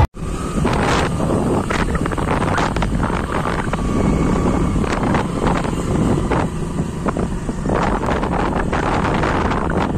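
Wind rushing and buffeting over the microphone of a moving motorcycle, with the bike's engine and road noise running beneath it.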